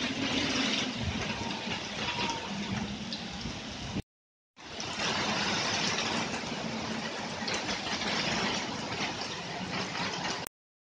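Heavy rain: a steady, dense hiss of falling and running water with a low hum beneath it. The sound cuts out to silence for about half a second around four seconds in, and again just before the end.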